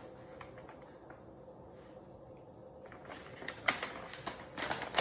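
A large chart-paper page of a big book being lifted and turned, crackling and rustling from about three seconds in.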